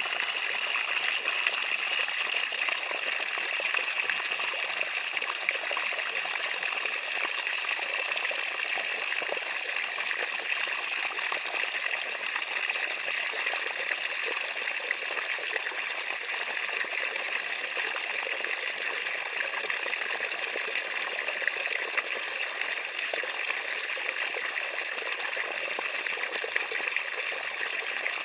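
Water running steadily in a continuous trickle, mostly high-pitched with no deep rumble.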